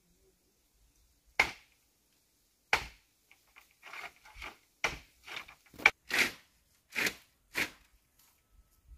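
A series of about ten sharp crunches and cracks of dry wood and brush, irregularly spaced, some single and some in quick pairs, starting about a second and a half in and stopping shortly before the end.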